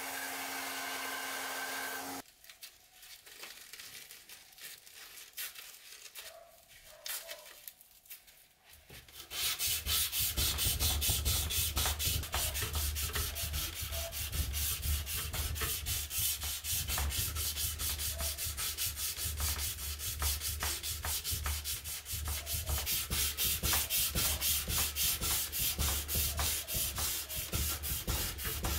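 Belt grinder running briefly against a steel machete blade, then cut off. After a quieter stretch, from about nine seconds in, sandpaper on a block is rubbed back and forth along the steel blade by hand in quick, steady strokes.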